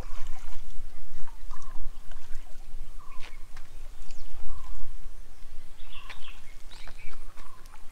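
Open-air ambience: wind rumbling on the microphone, with short repeated bird chirps every second or so.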